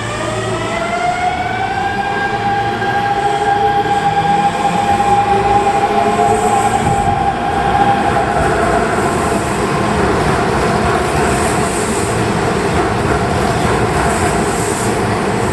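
An electric commuter train pulling out of an underground station: its motor whine rises in pitch over the first two seconds and then holds steady, while the running noise of wheels on rail builds and stays loud.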